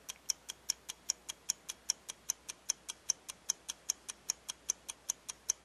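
Clock ticking sound effect: a fast, even tick-tock of about five ticks a second, alternating louder and softer, that stops suddenly at the end.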